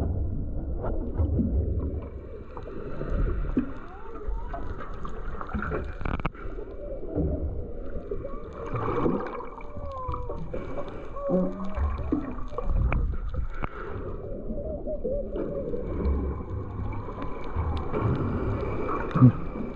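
Humpback whale song heard underwater: calls that glide up and down in pitch, clearest in the middle and again near the end, over a steady low rumble of water noise.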